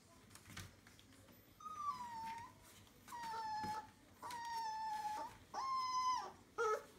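A young Entlebucher puppy whining: four drawn-out cries, each held at a steady pitch for under a second, then a short call that falls in pitch near the end.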